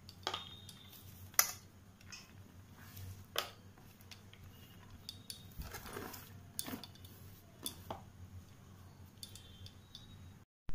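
Chopped vegetables being scraped by hand off a chopping board into a plastic mixing bowl: soft scrapes and a few scattered light taps and knocks of the board against the bowl, over a faint low hum.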